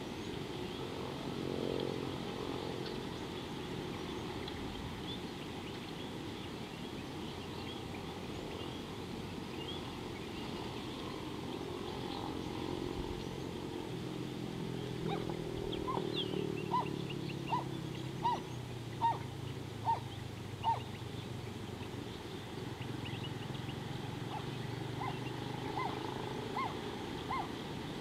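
Outdoor wildlife ambience: a steady low background rumble with faint small-bird chirps. In the second half a bird calls a run of about seven short, evenly spaced notes, under a second apart, and a fainter run follows near the end.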